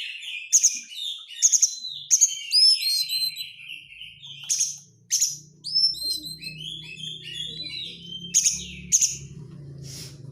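Oriental magpie-robin (kacer) singing a fast, varied song of high chirps and whistled notes, broken by short harsh rasping chatter notes (the 'crecetan'). A faint low hum comes in about four seconds in.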